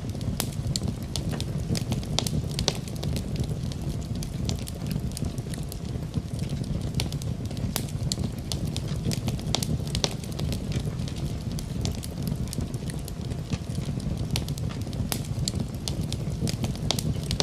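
Wood fire in a fireplace crackling, with irregular sharp pops over a steady low rumble of the flames.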